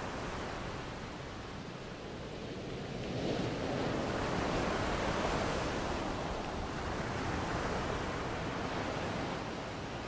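Ocean surf washing onto a beach: a wave breaks and rushes up the shore, swelling about three seconds in and easing off near the end.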